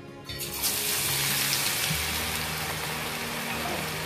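Cornflour-coated sliced onions hitting very hot oil in a steel kadhai: a sudden burst of sizzling about a third of a second in, then the steady bubbling hiss of the onions deep-frying.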